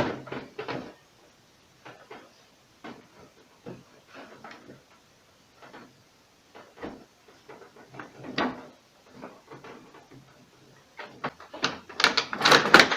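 A plastic interior cover panel of a refrigerator being worked loose by hand: scattered light clicks and knocks, then a burst of louder plastic clicks and rattles near the end as its latches let go.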